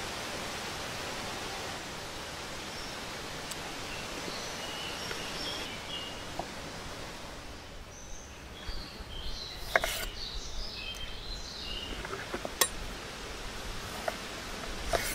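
Steady outdoor background hiss with birds chirping now and then, and a few sharp clicks of a fork and knife against a wooden board, the loudest about ten seconds in.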